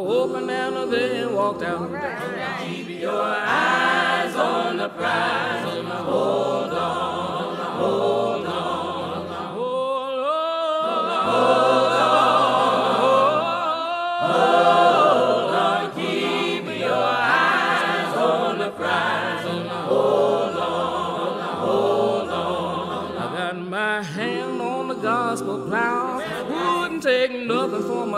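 Choir singing a gospel spiritual as background music.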